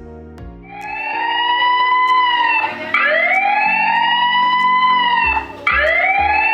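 Siren sound played through the speaker of a Patlite RT-VF revolving warning light: three wails, each rising quickly and then falling slowly over about two and a half seconds, the first starting about half a second in. Background music with a plucked guitar runs underneath.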